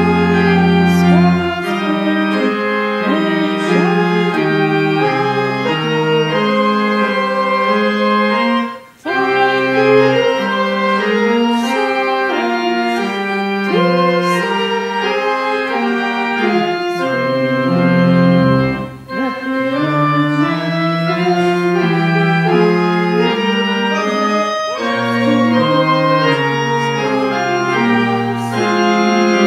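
Church pipe organ playing hymn-like chords that change about once a second, with short breaks between phrases about nine and nineteen seconds in.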